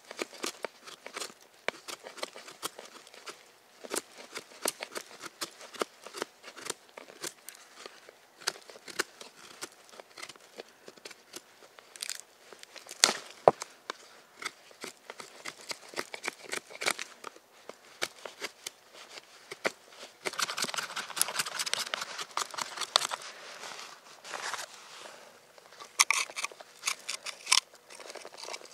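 A knife blade shaving curls off a wooden stick to make a feather stick: short, crisp scraping cuts at irregular intervals, one to a few a second, with a stretch of denser, continuous scraping about twenty seconds in.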